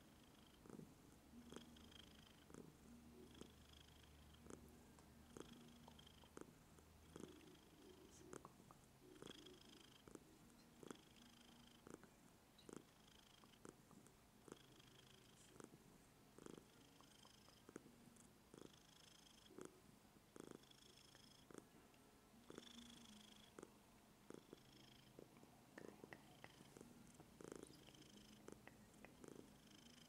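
Maine coon cat purring softly, its breathing cycle rising and falling about once a second, with faint small clicks in between.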